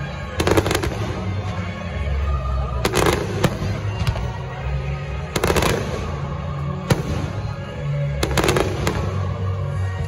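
Aerial fireworks exploding: sharp bangs in five bunches a couple of seconds apart, with music playing underneath.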